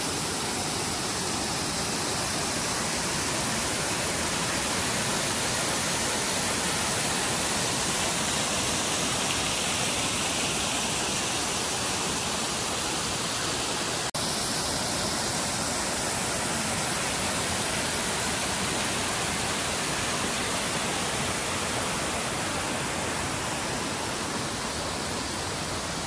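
Steady rushing of a fast-flowing rocky stream, an even hiss of water that briefly drops out about halfway through.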